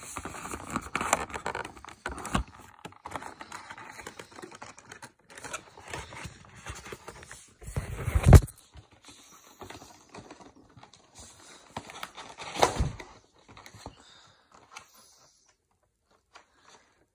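Hands working a model train out of its box and packaging: scattered rustling, clicks and taps, with two louder knocks about eight and twelve and a half seconds in, then going quiet near the end.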